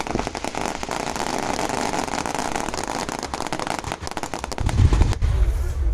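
Aerial fireworks crackling: a dense, rapid run of small pops and sizzling bursts. A deep low rumble comes in near the end.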